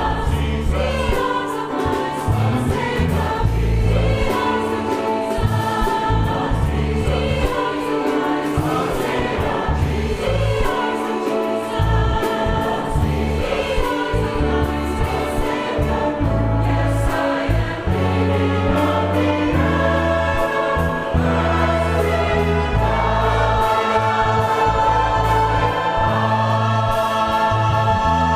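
Choir singing a hymn in full harmony over steady low held notes from a brass ensemble accompaniment.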